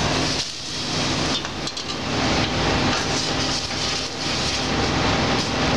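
Prawn stock ladled into a steel pot of hot toasted arborio rice, bubbling and hissing, then a wooden spoon stirring the rice. A few metal clinks of the ladle on the pot come about one and a half seconds in, over a steady background hum.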